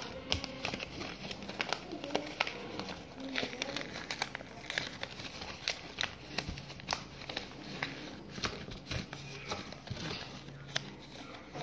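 A sheet of paper being folded and creased by hand against a table top: frequent crisp crinkles and small sharp taps as the folds are pressed down.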